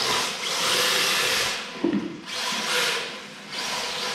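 Tyres of a radio-controlled drift car on an MST chassis scrubbing and hissing across a tiled floor as it slides through the turns, in surges about a second long. A short knock comes just under two seconds in.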